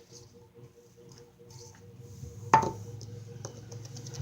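A single sharp clink of a hard dish or container about two and a half seconds in, ringing briefly, with faint handling noises around it.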